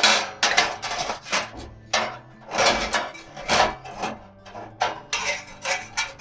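Metal cookware and utensils clattering and scraping against each other in an irregular string of about a dozen sharp strokes.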